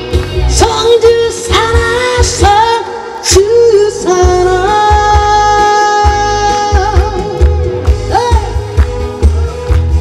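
A woman singing a song into a microphone over instrumental accompaniment with a steady beat. She holds one long note in the middle of the phrase.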